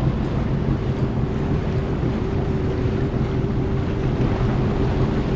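Sea-Doo personal watercraft engine running steadily while under way, with wind buffeting the microphone and water noise from the hull.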